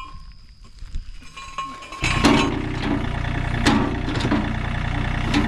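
Tractor engine running steadily, coming in abruptly about two seconds in, with several sharp metallic clanks over it.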